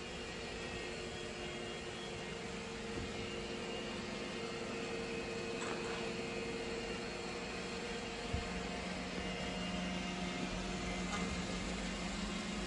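Steady mechanical hum and whir with a few steady tones, such as a fan or household appliance running, with a single light knock about eight seconds in.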